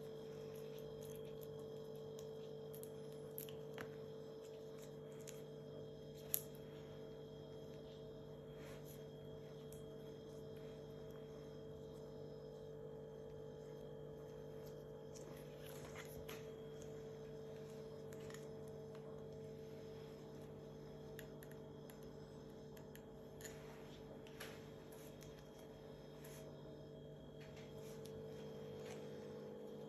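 Latex-gloved hands handling a stethoscope: faint scattered taps and clicks, with one sharp click about six seconds in, over a steady low hum.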